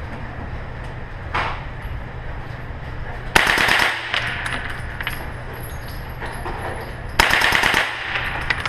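Two short bursts of fully automatic gunfire, each a rapid string of shots lasting about half a second, about four seconds apart, with a reverberant tail after each. A fainter single shot comes about a second and a half in.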